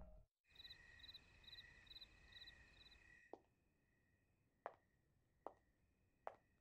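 Faint night ambience of crickets chirping, a high pulsing trill about twice a second, which stops after about three seconds. After that, only a few soft, sharp ticks about a second apart.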